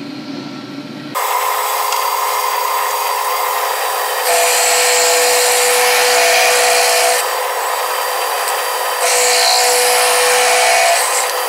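Half-inch roughing end mill on a milling machine cutting into a metal tube. After about a second the steady grinding of the cut comes in with a whine. It gets louder, with a held tone, in two stretches, about four seconds in and again about nine seconds in.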